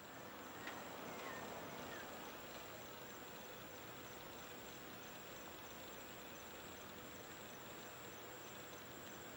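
Night ambience: insects keep up a steady high-pitched chirping trill over an even background hiss, with a small click and a few short chirps in the first two seconds.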